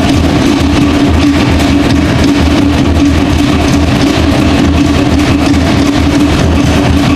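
Loud music for the fire dance, with a fast, even drumbeat under a steady low hum.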